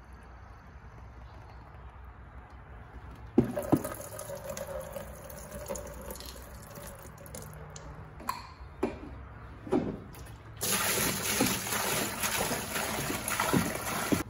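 A few sharp plastic clicks and knocks, then, from about two-thirds of the way in, water poured from a jug into a plastic bucket with a grit guard, a steady loud splashing as the rinseless wash bucket fills.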